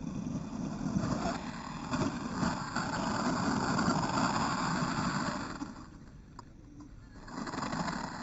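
A brushless-motor 1/10 RC buggy is driven hard over a dirt track, its motor running and tyres churning the dirt. It is loud for about five seconds, drops away, then swells again near the end as the buggy tumbles onto its roof.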